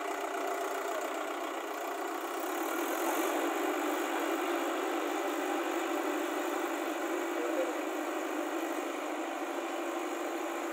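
Swaraj 834 XM tractor's diesel engine running steadily under load as it drags a plank leveller through wet paddy mud.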